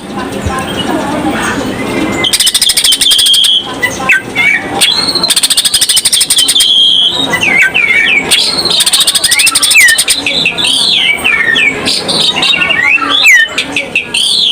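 Greater green leafbird (cucak ijo) singing loudly in full song, mixing bursts of fast rattling trills with short whistled notes that slide up and down. It is a varied song full of phrases mimicked from other birds.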